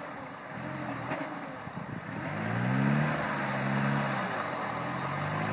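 Land Rover Discovery's diesel engine revving up about two seconds in, holding for a couple of seconds and easing off, with the truck beached on its axles in deep mud and not moving.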